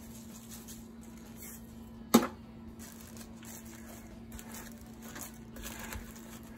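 A single sharp knock about two seconds in, then a spatula turning venison pieces in a plastic-lined crock pot, with soft squishing and rustling of the plastic liner. A steady low hum runs underneath.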